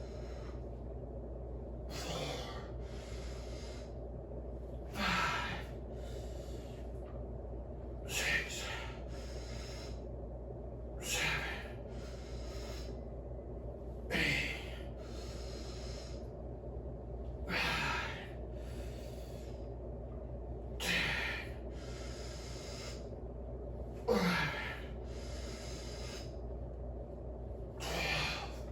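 A man breathing hard in a regular rhythm, a sharp forceful exhale followed by a softer breath about every three seconds, as he strains through repetitions of a lift. A steady low hum runs underneath.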